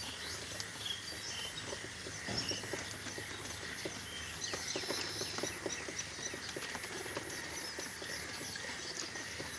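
Faint ambient noise with scattered short bird chirps and small clicks over a steady background hiss.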